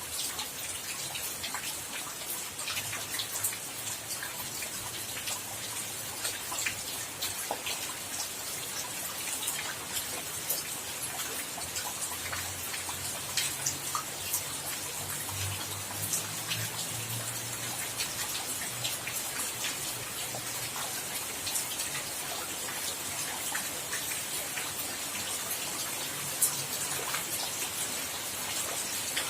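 Steady rain falling, with many separate drops ticking sharply on a hard surface.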